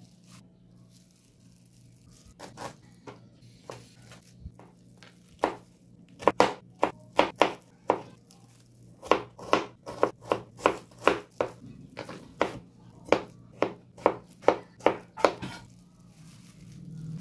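Kitchen knife chopping vegetables on a bamboo cutting board: sharp knocks, a few at first, then quick runs of about two to three a second that stop shortly before the end. A low steady hum lies underneath.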